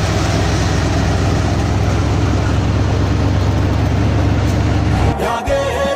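Vehicle engine running, a steady low rumble heard from on board a moving vehicle. It cuts off about five seconds in, when music with singing begins.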